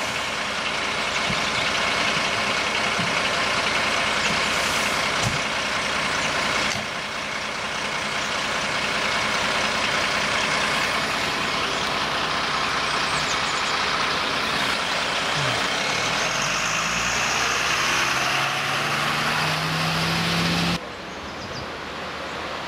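A MAN fire engine's diesel engine idling steadily under a dense steady hiss. From about 16 seconds in an engine note rises in pitch for several seconds. Then the sound drops abruptly to a quieter background.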